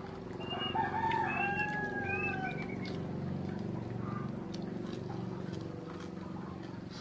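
A rooster crowing once, a single drawn-out call of about two seconds starting about half a second in.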